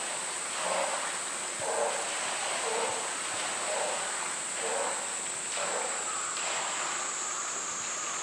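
An animal calling in a string of short calls, about one a second, each falling slightly in pitch, over a steady high hiss.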